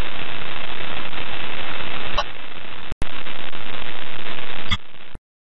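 Loud radio static hiss on the space-to-ground voice link, broken by a few sharp clicks and a brief dropout just before three seconds. It cuts off suddenly about five seconds in.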